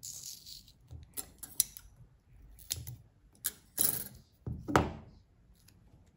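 Brown packing tape being worked by hand: a run of short clicks and knocks from the tape roll, with brief rasps as tape is pulled off and pressed onto paper strips. The loudest rasp comes about four and a half to five seconds in.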